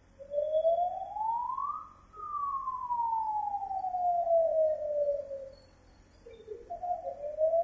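Siren wailing: its pitch rises for about two seconds, falls slowly over about three, then after a short break climbs again near the end.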